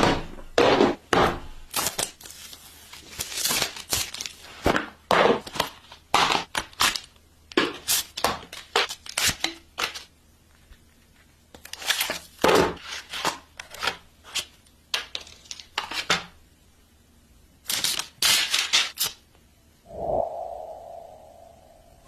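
Smartphone unboxing handling sounds: packaging being torn, peeled and crinkled, with short irregular rustles and scrapes as the box and its contents are handled. Near the end a brief tone fades away.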